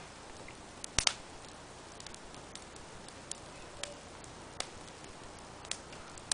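A wood fire burning in a mesh fire pit, crackling with irregular sharp pops over a low steady hiss; the loudest is a double pop about a second in.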